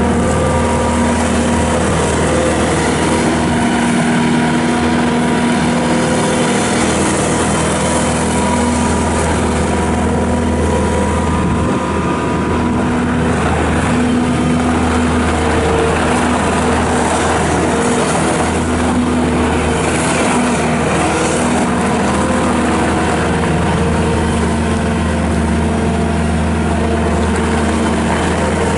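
Bobcat S770 skid steer loader's Kubota turbo-diesel engine running steadily.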